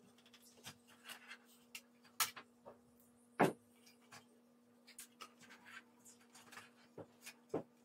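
Scattered clicks and knocks of an opened computer switched-mode power supply's sheet-metal case and circuit board being handled and turned over, with two louder knocks about two and three and a half seconds in.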